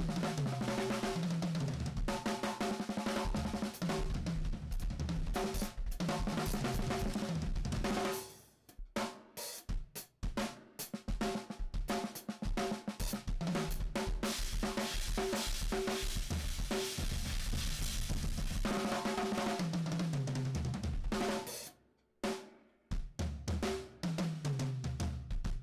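Drum kit played live: snare, kick, hi-hat and cymbals in busy grooves and fills over a backing track with a moving bass line. The playing breaks into sparse single hits about eight seconds in and again near twenty-two seconds, then picks back up.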